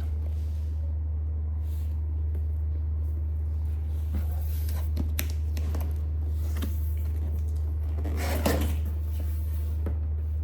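Cardboard box and packaging being handled while unpacking: scattered rustles and light knocks, the loudest cluster about eight seconds in, over a steady low hum.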